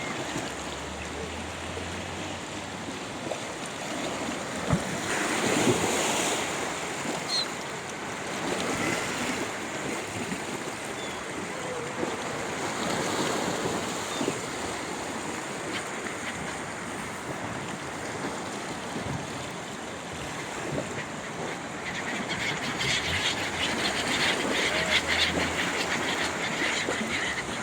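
Sea waves washing onto the shore in a steady rush, swelling about five seconds in, again around the middle, and most strongly over the last few seconds.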